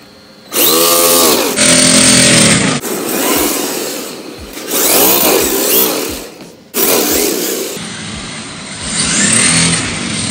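RC drift car on hard plastic drift tyres sliding sideways across a laminate floor: a loud scraping rattle that sounds like a rotary hammer, in several long bursts, with the motor's whine rising and falling as the throttle changes.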